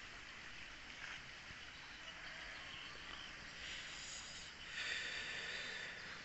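Faint outdoor ambience: a steady hiss with insects buzzing, growing louder about five seconds in.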